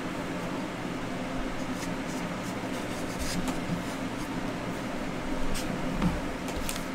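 A steady room hum with a few faint clicks and slides of trading cards being handled.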